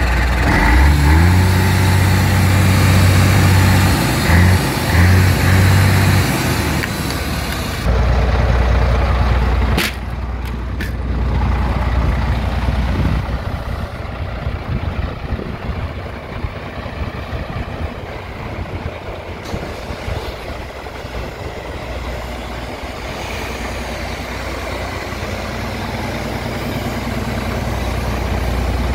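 MAN 19.414 tractor unit's diesel engine running at idle, with a few brief changes in its note about four to six seconds in. It is loud at first, quieter and rougher from about ten seconds in, and louder again near the end. There are a few sharp clicks around ten seconds.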